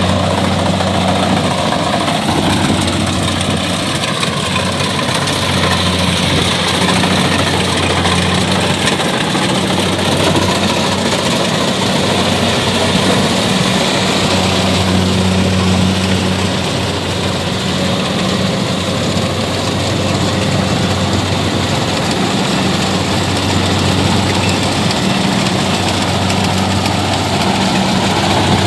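Kubota DC-70 combine harvester running steadily while it harvests rice: the diesel engine's low, even drone over the dense clatter and rush of the cutting and threshing machinery.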